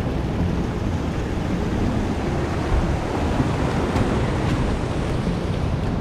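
Surf washing and foaming through channels in the rocks, a steady rush of sea water, with wind rumbling on the microphone.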